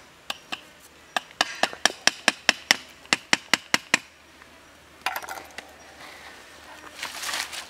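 Knife blade chopping at the end of a green wooden stick, a quick run of sharp wooden knocks about five a second that stops about four seconds in, followed by a light rustle of dry leaves.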